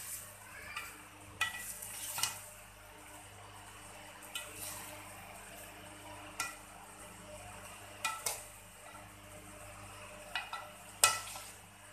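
A spoon stirring and turning cooked biryani rice in a large metal pot, with soft rustling and about seven sharp clinks and scrapes of the spoon against the pot, a second or two apart.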